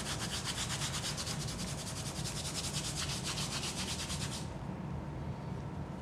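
Fingers scratching rapidly on a wooden floor: a fast, even rasping of many quick strokes that stops abruptly about four seconds in.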